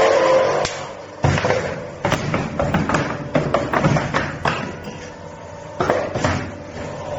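Wire hook-bending machine for clothes hangers running, its forming cycle giving a repeated clatter of sharp metal knocks and thuds every second or so, with a brief steady tone near the start.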